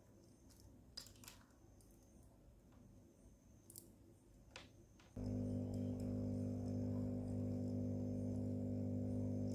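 SOBO SB-988 four-outlet aquarium air pump switching on about five seconds in and running with a steady electric hum. Before that, a few faint clicks as its power cord is handled.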